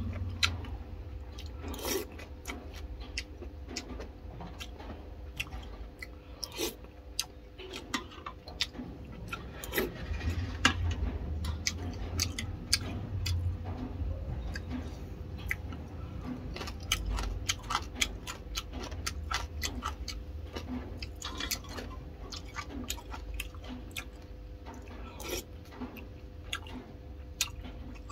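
Close-up eating sounds: chewing, with frequent sharp clicks and taps of a metal spoon and chopsticks against a china bowl, over a steady low hum.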